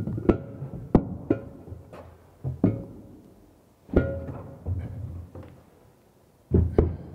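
Ceramic wash basin and pedestal being handled and set down: a series of irregular knocks and clinks, several of them followed by a short ringing tone.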